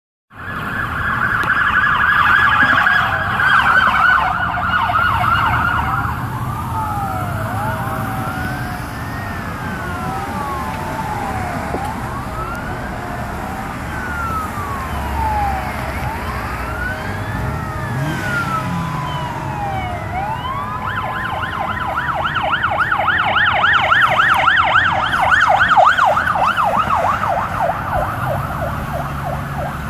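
Several emergency vehicle sirens from responding fire apparatus and a police car passing on the road. They start on a fast warble, change over to slow rising-and-falling wails that overlap one another, and go back to a fast warble near the end. Road traffic rumbles underneath.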